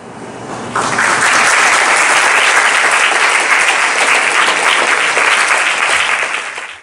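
Audience applauding, swelling in about a second in and holding steady, then fading out quickly near the end.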